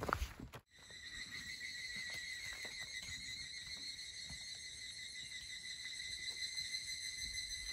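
A steady, high-pitched insect trill holding one pitch with overtones. It starts abruptly about a second in, after a brief silence.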